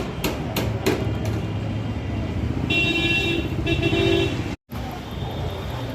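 A few sharp knocks in the first second, then a vehicle horn sounding twice in quick succession, over a steady low engine rumble.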